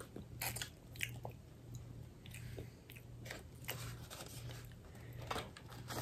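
Faint close-up eating sounds: biting into and chewing a Popeyes dessert pastry, with scattered soft crunches and mouth clicks over a steady low hum.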